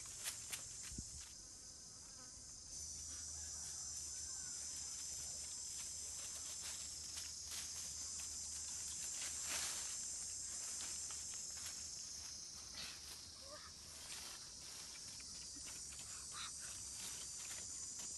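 Steady high-pitched drone of insects in the forest, growing louder about three seconds in. Scattered light taps and rustles.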